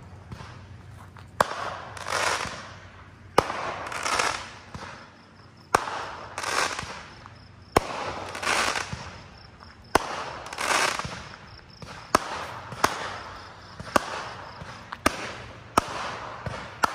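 Aerial fireworks going off in a steady series, about one every two seconds. Each is a sharp crack followed by about a second of crackling from the bursting stars.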